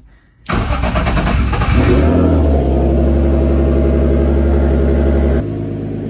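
Turbocharged BMW M50 inline-six turned over by the starter for about a second and a half. It catches with a brief rev and settles into a steady idle, starting cleanly without the backfire bang it had been giving on start.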